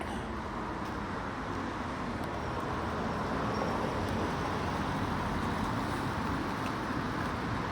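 Steady city road traffic noise, a broad hum of passing vehicles that slowly grows a little louder.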